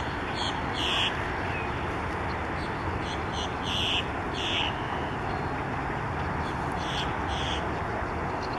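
Short, high bird calls repeated in loose groups, twice near the start, several in quick succession about three to four and a half seconds in, and twice more near the end, over a steady background rush of noise.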